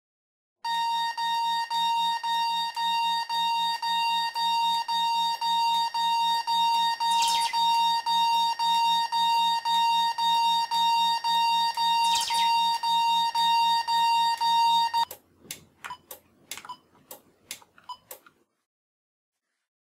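Bosch B Series alarm keypad sounding its fire alarm: a pulsing beep near 1 kHz, about two beeps a second. It cuts off about fifteen seconds in and is followed by a run of quick keypad button presses as the passcode is entered to silence it.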